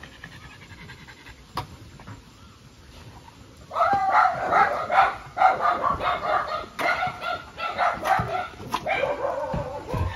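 Dogs barking in a rapid, almost unbroken run of short, pitched barks and yips, starting about four seconds in and going on nearly to the end.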